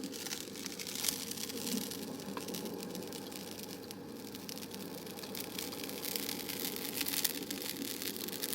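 Fine, dense crackling close to the microphone over a steady low rushing background noise, with a few louder ticks near the end.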